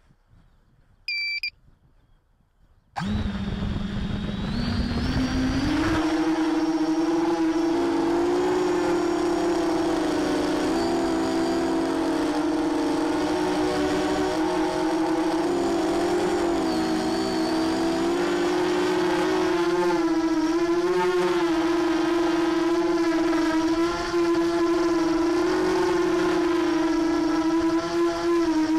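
A short high beep about a second in. Then the four Sunnysky 2207 2100 kV brushless motors and propellers of a ZMR 250 mini quadcopter spin up suddenly about three seconds in, their pitch rising as it lifts off. After that comes a steady, loud buzzing whine whose pitch wavers up and down with throttle, heard through the onboard camera.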